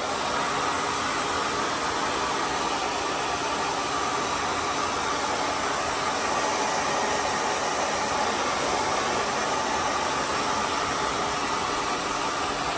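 Hand-held blow dryer running steadily on its warm setting, blowing air into a leg of old leggings that serves as the hood of a DIY hooded dryer; a constant even whoosh of air.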